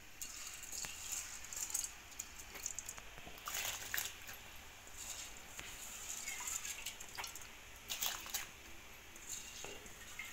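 Rice and split moong dal simmering in water in a clay pot: faint, irregular bubbling and popping, with a few louder splashy bursts around four seconds and eight seconds in.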